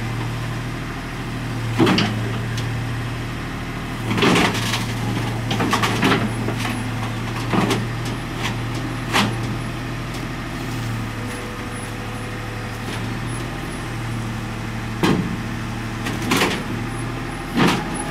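Komatsu PC50UU mini excavator's diesel engine running steadily as it works its boom on the truck bed, with about eight sharp knocks spread through the stretch.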